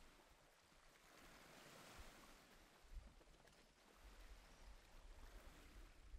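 Near silence: a faint wash of noise that swells and fades.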